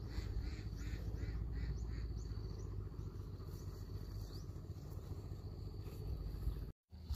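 A bird calling in a quick run of short repeated notes, about three a second, that stops after a couple of seconds, over a steady low rumble.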